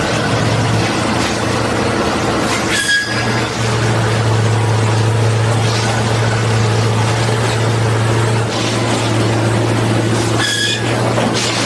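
Unimat track tamping machine running with a steady low engine drone. Two short high squeals cut through it, about three seconds in and again near the end.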